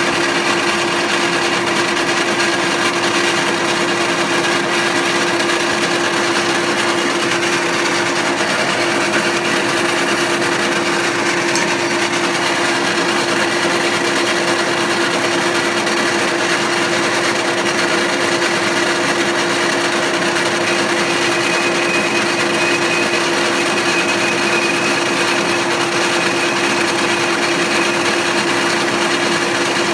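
Small lathe running steadily while turning an aluminium blank: an even motor whirr with one constant tone.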